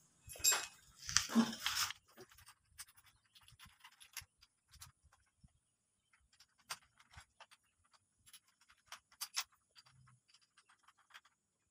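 A corded electric drill being handled while a bit is fitted in its chuck: faint, scattered clicks and ticks, after a couple of louder scuffs in the first two seconds.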